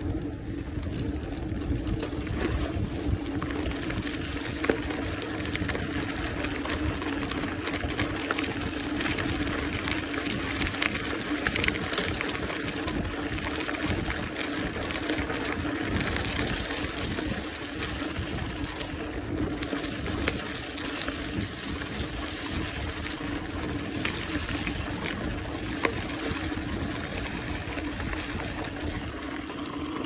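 Mountain bike riding: steady rolling noise of the tyres with wind on the microphone, and frequent small clicks and rattles from the bike over the rough surface.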